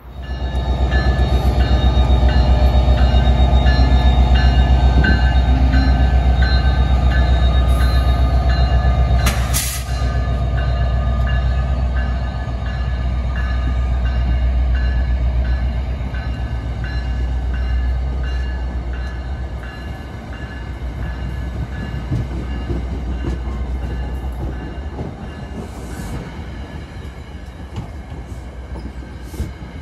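A New Jersey Transit train passes close by at speed. A loud, deep rumble comes first, as the locomotive goes by, and after about nine seconds it gives way to the quieter rolling of the stainless-steel coaches' wheels on the rails. There is one sharp clank about nine seconds in, and a high ringing tone pulses steadily throughout.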